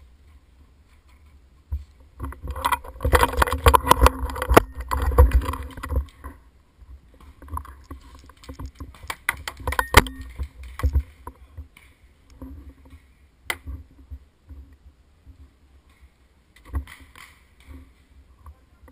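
Paintball gunfire: a dense run of sharp pops and cracks lasting about three seconds, starting a couple of seconds in, then scattered single shots later on.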